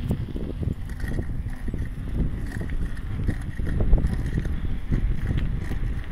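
Wind buffeting the microphone: a low, uneven rumble that goes on throughout.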